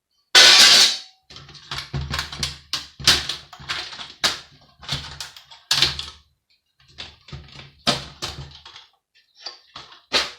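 Parts of a Sky satellite TV box being handled during dismantling: a brief loud rushing noise about half a second in, then a long run of irregular clicks, knocks and clatters of metal and circuit-board pieces, some with a low rumble under them.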